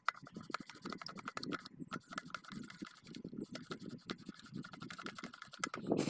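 Hands working over a center pivot irrigation collector ring, the stack of copper slip rings and its brush block, making quick irregular clicks and scrapes.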